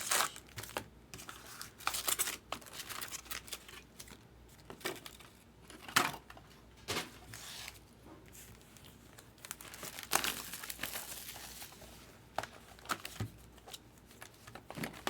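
Trading-card pack wrappers and packaging crinkling and tearing as baseball card packs are opened, in scattered sharp crackles and short rustles.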